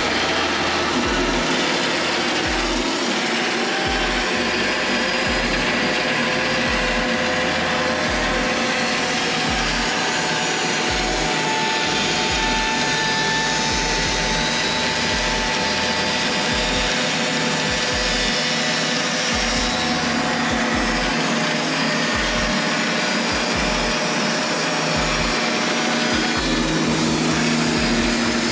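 Wood-Mizer LT15 WIDE electric band sawmill running steadily: a dense, even whir with faint whining tones over it.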